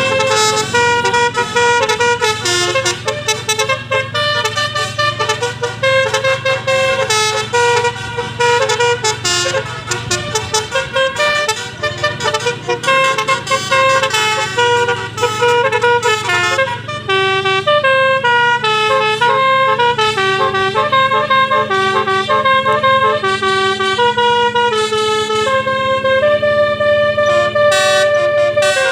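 Basuri telolet horn, a multi-tone vehicle horn with roof-mounted trumpets, playing a continuous tune of quick stepped notes over a steady low hum.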